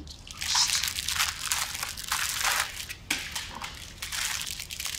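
Crisp pastry crunching and crackling as a tart is cut and broken into, in several runs of about a second each.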